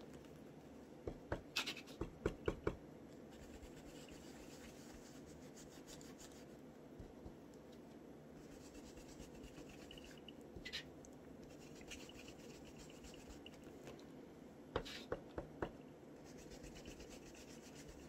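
Foam ink blending tool scrubbing Ranger ink through a plastic stencil onto paper: faint rubbing and scratching, with two short clusters of quick taps, about a second in and again about three-quarters of the way through.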